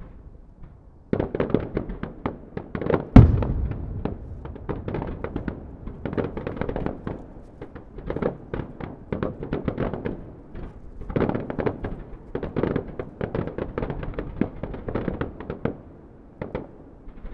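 Digital starmine fireworks: a rapid, computer-timed barrage of shells firing and bursting in quick succession, many overlapping bangs and pops that start about a second in, with one especially loud bang about three seconds in, thinning out near the end.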